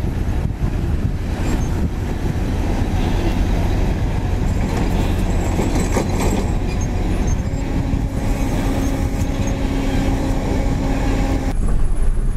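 Heavy diesel truck engine running under load while a loaded low-bed trailer rumbles and rattles over rough dirt. A steady engine hum joins a little past the middle. Near the end the sound cuts abruptly to the drone heard inside a truck cab.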